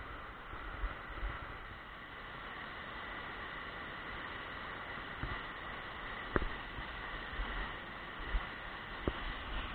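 Steady rush of a fast river running over rapids and riffles, with low wind buffeting on the microphone now and then. Two sharp clicks cut through, at about six and nine seconds in.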